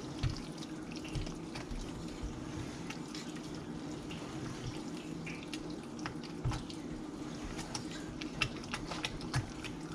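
A spatula stirring a wet plantain, fish and egg batter in a stainless steel bowl: soft wet squelching with small irregular clicks and scrapes against the metal, over a steady low hum.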